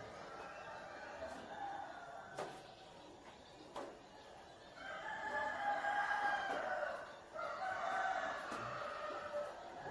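A rooster crowing twice in a row, two long calls of about two seconds each, the loudest sound here. Before them, two sharp knocks.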